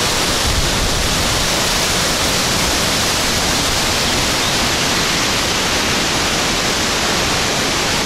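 The Marmore Falls, a man-made waterfall, pouring with a steady, loud rush of water that never lets up.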